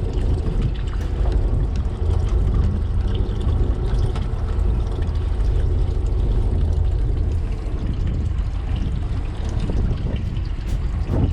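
Steady low rumble of a fishing boat, engine and water noise, with no clear changes.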